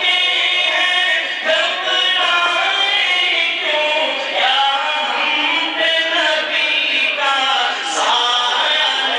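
A man's voice chanting an Urdu naat, a devotional poem in praise of the Prophet, in a melodic, unaccompanied style, sung into a microphone.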